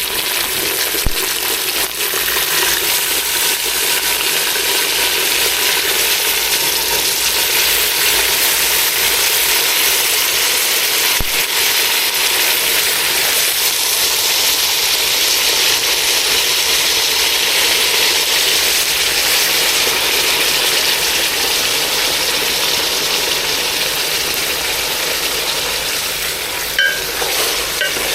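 Food frying in a pot on the stove: a steady, loud sizzle, with a few light clinks near the end.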